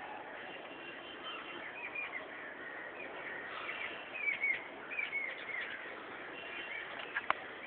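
Small birds chirping: a run of short, quick chirps, busiest in the middle, over a steady background hiss. A single sharp click near the end.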